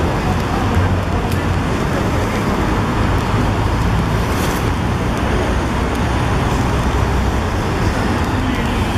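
Steady city-street ambience: a constant low rumble of road traffic, with a brief hiss about four and a half seconds in.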